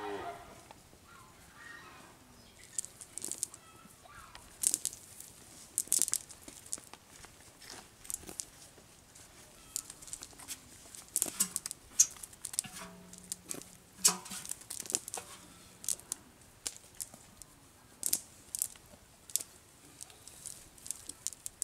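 Wet cast net rustling and crackling as it is handled and picked through to free caught fish: irregular clicks and crinkles with no steady rhythm.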